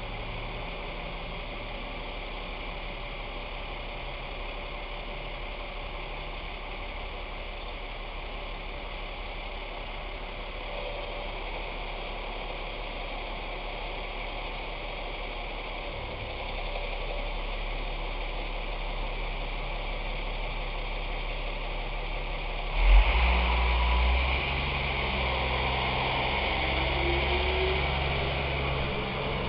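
Work truck's engine idling steadily. About 23 seconds in it suddenly grows louder as the truck pulls away towing a trailer loaded with a backhoe, and its pitch then rises slowly as it gathers speed.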